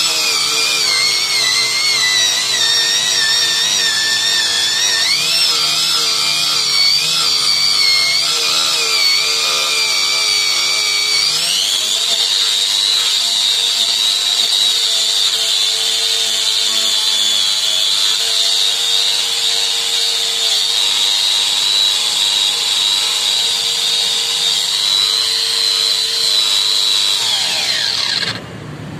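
Handheld electric tool with a wire wheel brush running, buffing the rubber inner liner of a car tyre around a large hole to prepare it for a patch. Its high motor whine wavers and dips in pitch for the first ten seconds or so as it is pressed into the rubber, then holds steady, and winds down near the end as the tool is switched off.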